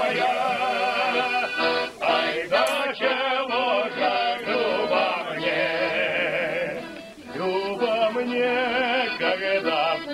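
Background music: men singing a folk song together in several voices with vibrato, with a brief break about seven seconds in.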